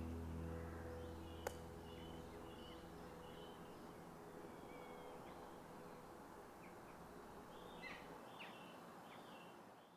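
Faint birdsong: small birds giving short chirps and whistled calls, more of them near the end. The last guitar chord dies away at the start, and there is a single sharp click about a second and a half in.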